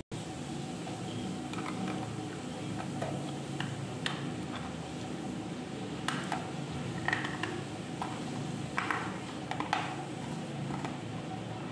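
Slate pencil being bitten and chewed, a series of sharp, irregular crunches, the loudest between about six and ten seconds in, over a steady low background noise.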